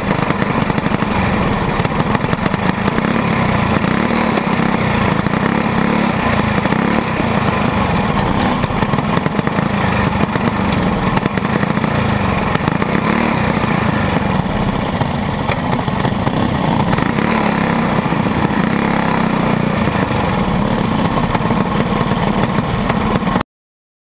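A quarter midget race car's small engine running steadily and loudly, heard from an onboard camera on the car. It cuts off suddenly near the end.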